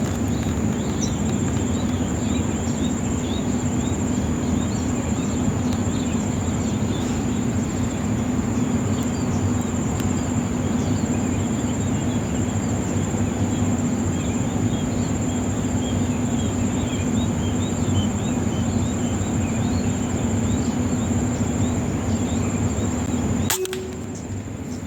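Rural outdoor ambience: a steady high insect drone with many short bird chirps over a constant rushing background. The sound drops out abruptly near the end and comes back a second later.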